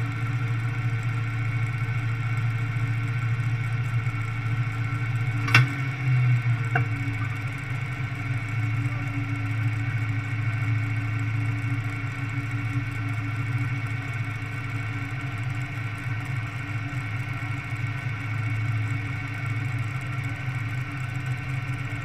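Single-engine modified pulling tractor's engine idling steadily. There is a sharp click about five and a half seconds in, then a brief rise in the engine sound and a fainter click about a second later.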